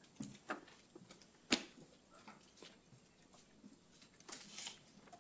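Scattered small clicks and faint rustles in a quiet room, with one sharp click about one and a half seconds in.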